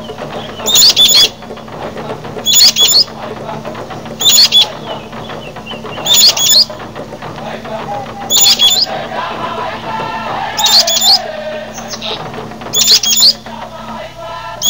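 A bird repeating a short, high call about every two seconds, seven times, loud against a background of fainter calls and a steady low hum.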